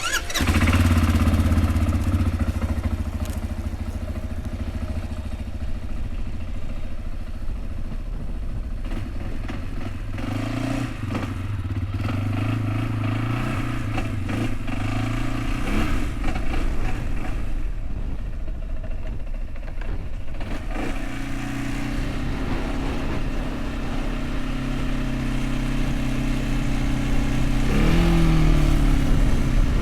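A vehicle engine starting up loud and running steadily, changing pitch a few times, then rising in pitch as it speeds up near the end.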